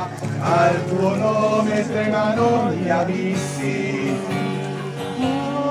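Voices singing a hymn to acoustic guitar accompaniment, with long held notes.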